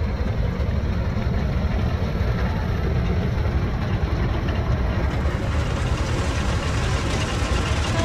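Motorized rice thresher running steadily while rice sheaves are fed into it: a continuous low machine noise.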